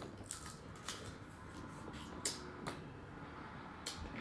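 Eating sounds from boiled crawfish: about five sharp, wet mouth smacks and clicks at irregular intervals as the food is chewed and the fingers are sucked.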